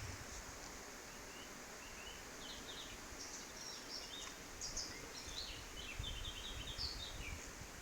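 Birds chirping: many short, high chirps in quick runs over a steady outdoor hiss, with wind rumbling on the microphone in the last couple of seconds.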